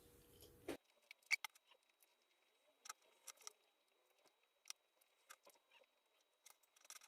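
Faint, scattered clicks and small mouth sounds of someone eating pizza. The background hum cuts off abruptly about a second in.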